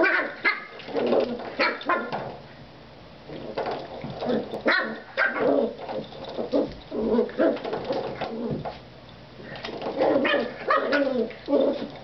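Jack Russell puppy growling and yipping in short playful bursts while it bats and bites at a coiled-spring door stop, with clicks and twangs from the spring.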